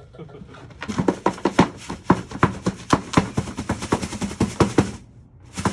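Gold ore being crushed toward powder: rapid, irregular knocking and rattling of rock, about five hits a second, that stops about a second before the end, then one more short burst.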